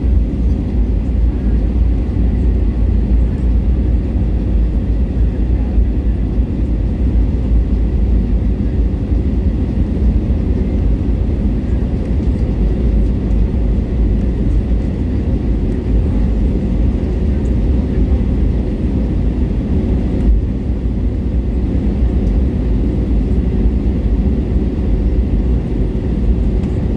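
Steady low rumble of an Airbus A320neo's engines and airframe, heard from inside the passenger cabin, with a few faint steady tones above it and no change in power.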